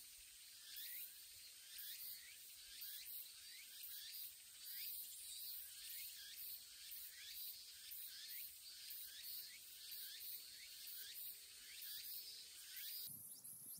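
Summer insects, cicadas among them, calling in the lakeside woods: a high, pulsing buzz with a repeated chirping call about twice a second. It cuts off abruptly near the end.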